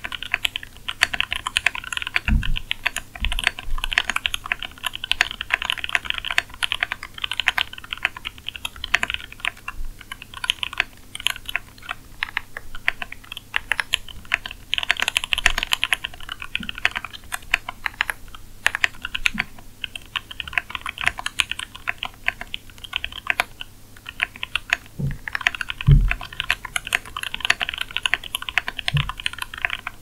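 Fast typing on a Tofu65 65% mechanical keyboard with lubed Gateron Yellow linear switches, Domikey white-on-black keycaps and lubed TX stabilisers: steady key clacks with a few short pauses. A few low thumps come from furniture being moved elsewhere in the house, the loudest near the end.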